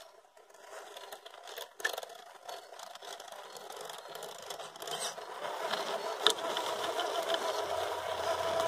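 RC crawler's Fusion 1800kV brushless motor and geared drivetrain whining as the truck creeps up a steep rock face, the steady whine growing louder from about five seconds in, with a few scattered clicks.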